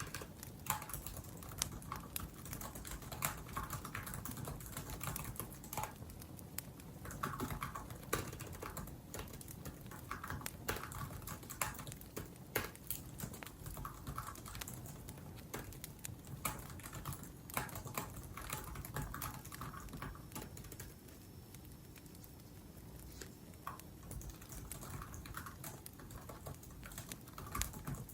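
Typing on a laptop keyboard: irregular runs of keystrokes with short pauses, over the low crackle and hiss of a wood fire.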